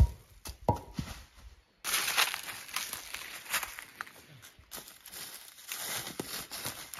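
Footsteps and rustling on the forest floor, with a couple of sharp knocks in the first second. The background changes abruptly about two seconds in.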